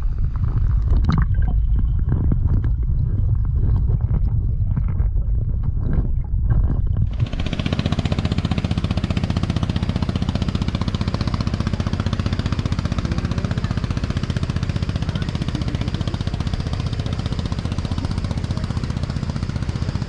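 Tour boat's engine running. About seven seconds in, the sound changes abruptly from a heavy, uneven low rumble to a steadier, brighter engine noise.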